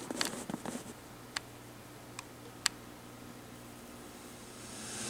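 A quick cluster of sharp clicks and ticks, then three single ticks spread over the next two seconds, over a faint steady hum; a hiss swells near the end.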